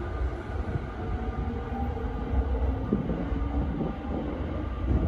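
Tokyo Waterfront Area Rapid Transit 70-000 series electric train running away along the track, a steady low rumble of wheels on rails with faint steady motor tones above it.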